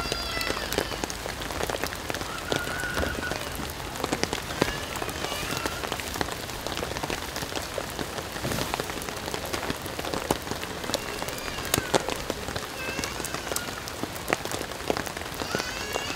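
Steady rain falling on a wooden deck, with frequent sharp drip ticks.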